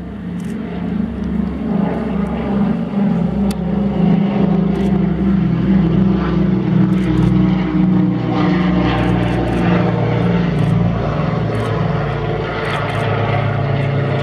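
Canadair CL-215 water bomber flying past, its two Pratt & Whitney R-2800 radial piston engines making a loud, throbbing propeller drone. The drone builds to its loudest midway, then drops in pitch near the end as the aircraft passes and banks away.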